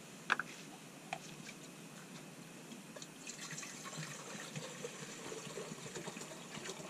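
Water pouring from a bottle into a cooking pot, starting about three seconds in and running unevenly to the end. A sharp click comes near the start, and a fainter one about a second in.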